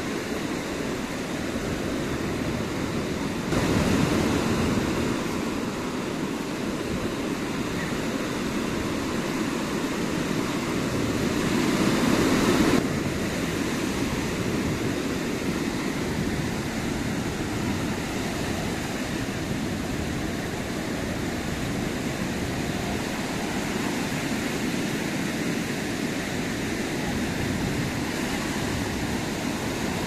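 Small waves breaking and washing up on a sandy beach, a steady rushing wash. It grows suddenly louder about four seconds in, and swells again to a peak about twelve seconds in before dropping back abruptly.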